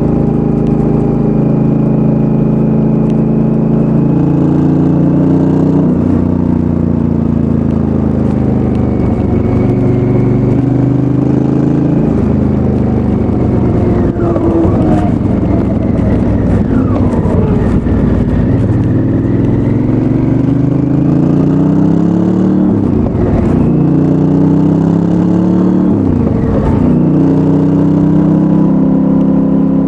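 Stock 2019 Honda Africa Twin's 998 cc parallel-twin engine through its standard exhaust while riding, the pitch climbing through the gears and dropping back off the throttle again and again.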